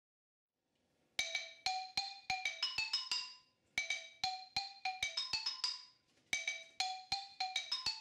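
Xylophone played with mallets: a quick tune of single struck notes, each ringing briefly. It starts about a second in and runs in three short phrases with brief pauses between them.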